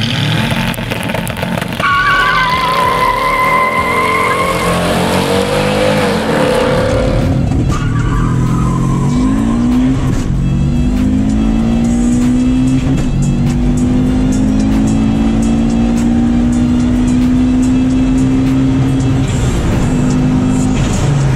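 Car launching hard from a standing start, with tyre squeal early on. The engine then pulls at full throttle through the gears, its pitch climbing in each gear and dropping at each shift.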